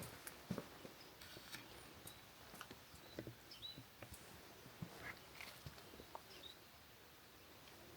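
Quiet outdoor ambience: soft, irregular footsteps on a path, with a few faint high chirps about three and a half seconds in and again near six seconds.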